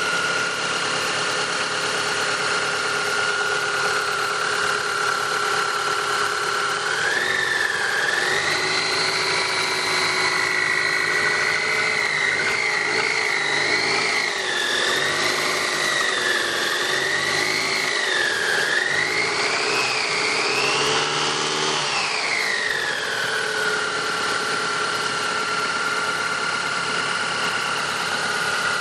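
Chevrolet Vectra 2.2 16v four-cylinder engine running with a steady high whine. After about seven seconds it is revved up and down several times, the whine rising and wavering with the revs, then it settles back to idle about twenty-three seconds in. The ugly noise is the sign of a broken balance shaft assembly, which makes the engine sound as if it were knocking.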